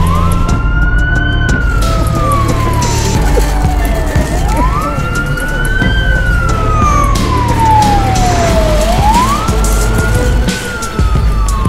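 Ambulance siren wailing in slow cycles, three times: each cycle is a quick rise in pitch followed by a long, slow fall.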